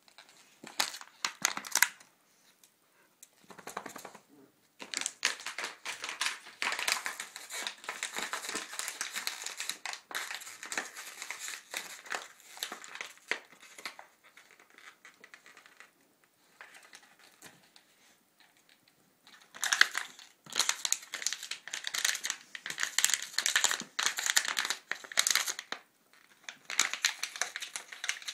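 A dog pawing and mouthing a crinkly plastic toy: crackling and crinkling in long, irregular bouts with short quiet gaps between.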